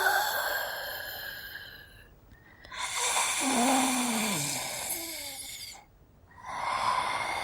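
Mummy sound effects: hoarse, breathy monster vocalisations. One fades out over the first two seconds, a second lasts about three seconds with its pitch sliding downward, and a third begins near the end.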